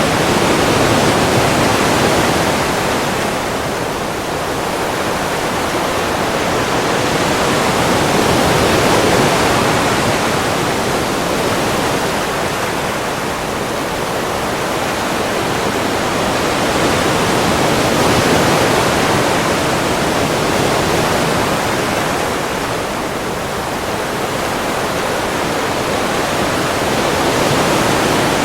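Ocean surf: a continuous wash of breaking waves that swells and eases slowly, cresting about every nine seconds.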